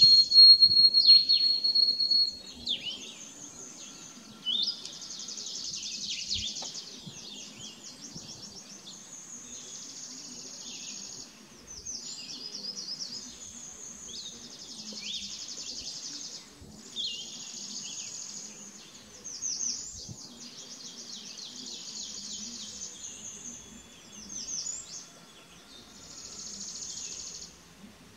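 Songbirds singing outdoors: a loud, long, high steady whistle over the first two seconds, falling away at its end, then a run of high buzzy trills, one phrase every second or two.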